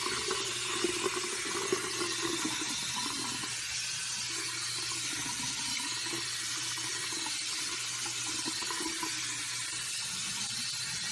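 Pull-out sink sprayer running, a steady hiss of water spraying onto a small animal lying in a sink.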